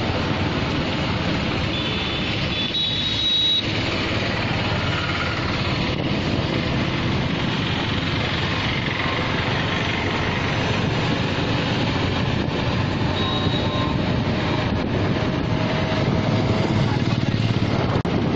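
Steady vehicle and road noise: an engine running while moving along a road.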